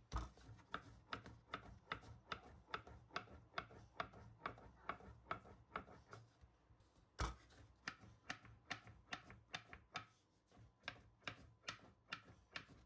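Faint wooden clicks of a small rolling pin against the board as bun wrappers are rolled out, about three a second in a steady rhythm. The rolling stops briefly near the middle, a single heavier knock follows, and the clicking picks up again.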